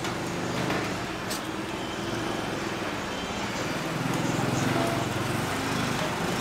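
A small engine running steadily, a little louder about four seconds in.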